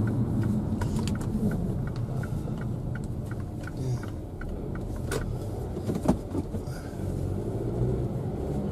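Car cabin noise while driving slowly: steady engine and tyre rumble, with the turn indicator ticking about three times a second through the first four seconds. Two sharp knocks come a little past the middle, the second the loudest.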